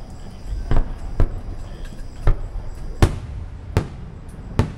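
Aerial fireworks shells bursting: six sharp booms spaced about half a second to a second apart, the loudest about three seconds in.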